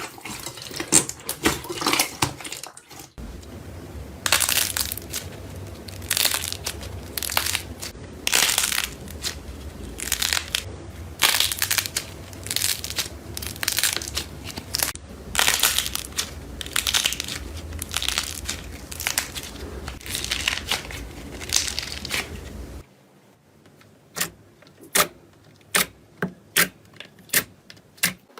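Hands squeezing and pressing crunchy slime, giving repeated crackling, crunching bursts about once a second. Near the end it switches to quieter sharp clicks and pops.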